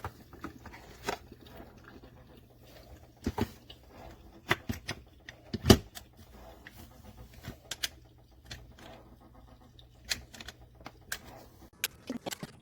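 Irregular clicks and knocks of small hard objects being handled, the loudest about halfway through, over a faint steady low hum.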